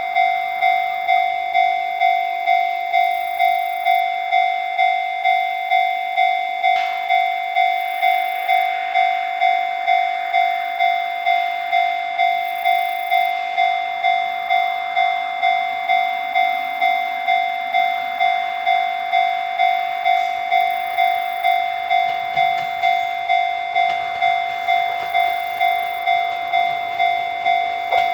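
Japanese level-crossing warning bell ringing, an electronic ding repeating evenly at nearly two strikes a second. A faint rushing noise builds beneath it from about a quarter of the way in.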